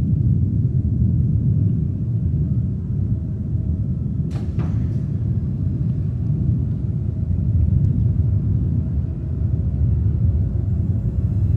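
A steady low rumble, with a single sharp knock about four seconds in.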